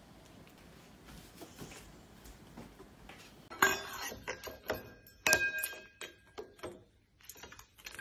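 Small stainless steel bowls clinking and ringing as lovebirds peck at and climb into them. The first three and a half seconds are faint room tone; then come a run of sharp metallic clinks, several left ringing with a clear bell-like tone for up to a second.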